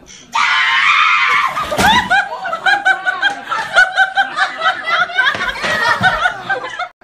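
High-pitched laughter in quick, repeated bursts for about five seconds, after a short noisy rush about half a second in.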